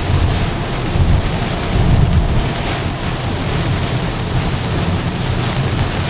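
Steady rumble and hiss of a 2023 Tesla Model Y electric car driving at highway speed in the rain: tyre noise on wet pavement mixed with rain and wind on the car.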